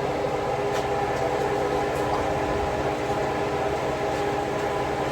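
A kitchen appliance's motor or fan running with a steady hum, holding a few even tones.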